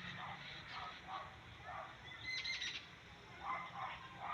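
Several birds giving repeated short, harsh alarm calls, with a quick run of higher notes about two seconds in: mobbing after a cat threatened their nests, eggs and chicks.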